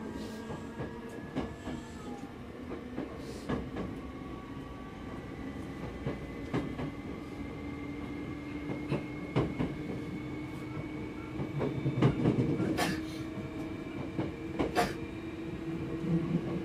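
Hankyu 5300 series electric train running, heard from inside the passenger car. The traction motor and gear whine rises slowly in pitch as the train gathers speed, and the wheels click over rail joints, with a louder stretch of rumbling about twelve seconds in.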